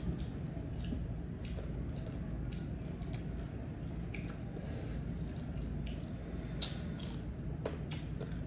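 Close-up eating sounds of green mango slices with bagoong: a scatter of short wet clicks and crunches from biting and chewing over a steady low hum, with one sharper click about six and a half seconds in.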